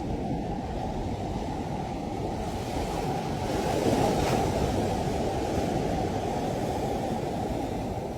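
Sea surf on a shore: a steady wash of water, with one wave breaking louder about four seconds in.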